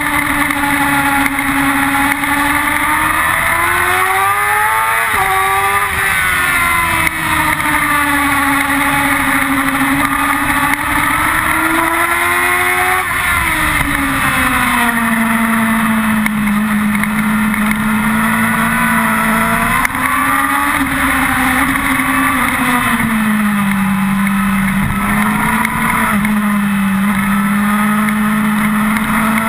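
Yamaha R6's inline-four sport-bike engine running hard at high revs on track. Its pitch climbs, then drops sharply about five seconds in and again about thirteen seconds in, where the revs fall. After that it runs lower and steadier with a few dips, over a constant rush of wind and road noise.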